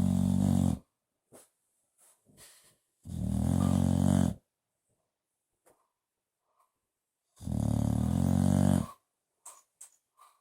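A bulldog snoring loudly in its sleep: long, rough snores about every four seconds, with faint snuffles and clicks in the gaps between them.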